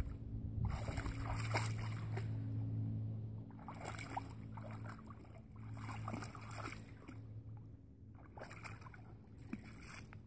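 A Rottweiler wading and pawing in a shallow muddy puddle, water splashing and sloshing around its legs in several bursts, over a low steady hum.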